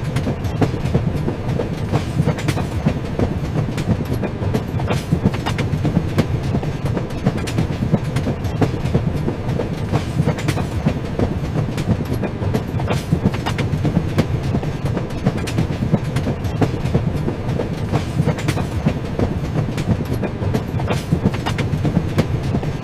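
Train running along the track: a steady low rumble with frequent sharp clicks as the wheels pass over rail joints.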